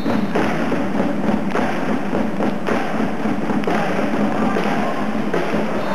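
Volleyball arena crowd making continuous noise, with a steady run of loud thumps about two to three a second from the stands.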